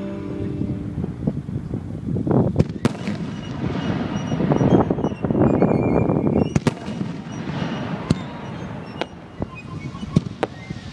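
Aerial fireworks bursting, with a spell of dense crackling through the middle and sharp single bangs about three and seven seconds in, then scattered pops.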